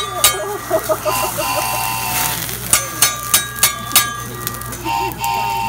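Metal cooking utensils clanking against a hibachi griddle: sharp clacks in quick runs, some ringing briefly after the strike, over background chatter of diners.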